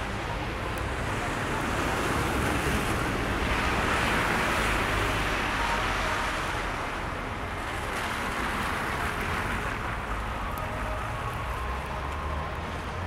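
Street traffic on a snow-covered city road: a steady wash of tyre and engine noise that swells as a vehicle passes about four seconds in, with a low rumble of wind on the microphone.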